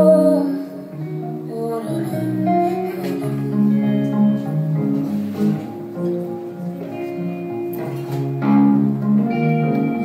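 Live music: a woman singing over plucked guitar.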